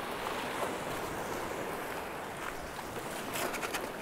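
Sea swell washing and breaking against shore rocks: a steady rushing surf.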